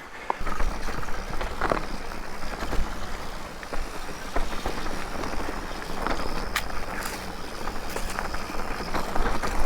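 Mountain bike rolling along a dirt and rock singletrack: tyre noise on the trail with scattered rattles and knocks, and wind rumbling on the microphone.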